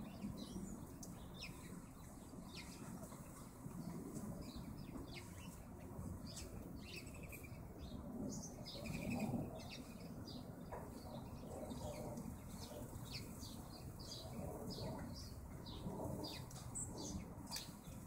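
Small songbirds at a backyard feeder giving many short, high chirps and calls scattered throughout, with the flutter of wings as they come and go. A steady low rumble lies underneath.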